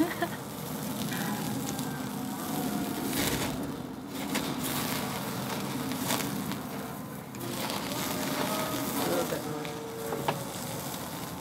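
Steak sizzling on a small tabletop grill, with fat crackling in the flames. A few sharp clicks of metal tongs as the meat is turned.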